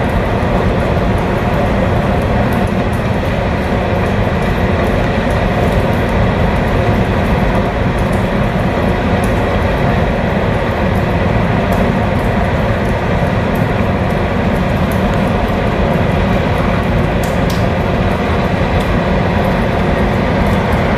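A steady mechanical rumble with a rushing noise and a faint hum, unchanging throughout, with a few faint clicks near the end.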